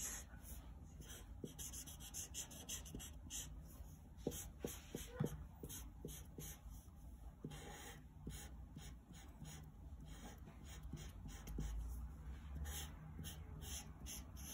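Faint felt-tip marker rubbing on paper in many short, irregular colouring strokes.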